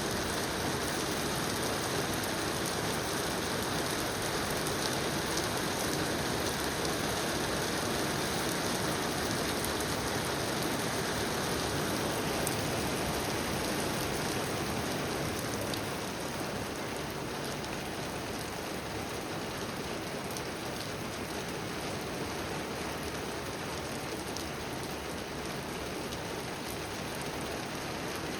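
Steady rain falling, an even hiss with scattered drops ticking. It eases slightly a little past halfway.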